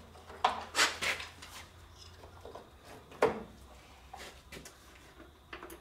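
Scattered light clicks and knocks of the boat's electric winch connection being plugged in and handled. No winch motor runs: the winch fails to work, with rust corrosion on its connector contacts.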